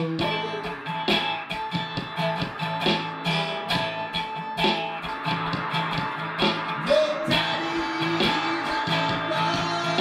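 Steel-string acoustic guitar being strummed in a steady, even rhythm, chords ringing between the strokes.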